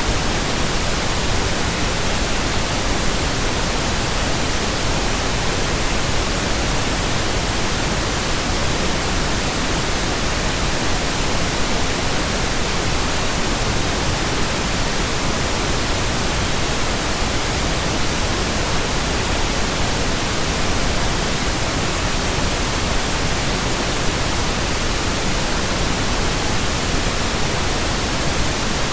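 Steady synthetic pink noise: an even, unchanging hiss across all pitches at a constant level.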